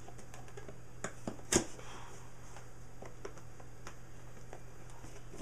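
Cardboard box flaps being handled and pried at by hand: scattered light taps and rustles, with one sharper snap about a second and a half in, over a faint steady hum.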